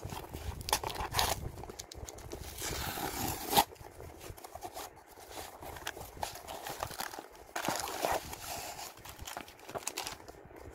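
Handling and opening a cardboard parcel: tape pulled off, box flaps scraping and knocking, and plastic air-cushion packaging crinkling as a book is lifted out. A drawn-out rip about three seconds in ends in a sharp snap, the loudest moment.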